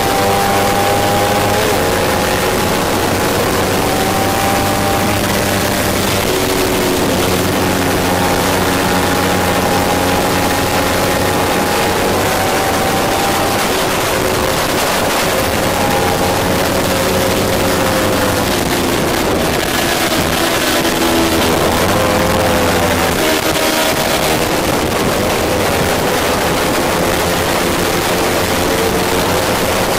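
Kawasaki Ninja 300 parallel-twin engine running hard under racing, heard from an onboard camera through heavy wind rush. The engine note climbs in pitch through each gear and drops back at each shift. About twenty seconds in there is a stretch of quick pitch changes as the revs come down and rise again.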